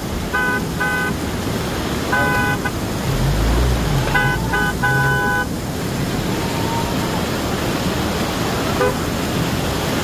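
A car horn honking: two short toots, a longer one about two seconds in, and a quick run of toots around four to five seconds. Under it runs the steady rush of muddy floodwater flowing across the road.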